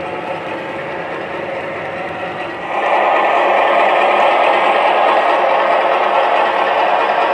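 O-scale model freight train running on three-rail track, a steady clatter of wheels over rails with motor hum. About three seconds in it gets noticeably louder as the Atlas 44-tonner diesel locomotive passes close.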